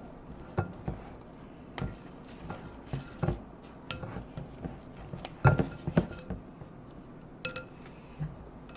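A metal fork stirring slime in a bowl, clinking against the bowl at irregular intervals, a few of the clinks ringing briefly; the loudest come about five and a half seconds in.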